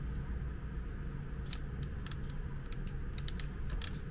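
Sharp small clicks and snips of a red-handled hand tool working the end of an extension-cord conductor, a quick run of them starting about a second and a half in, over a steady low hum.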